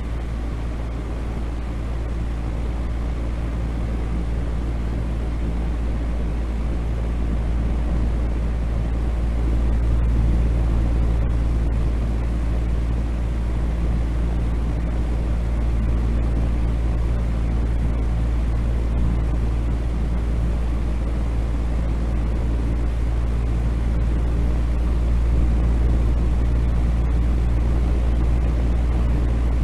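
A steady, deep noise played as a relaxation and sleep track, with a faint steady hum in it. It swells slightly about ten seconds in and otherwise stays unchanged.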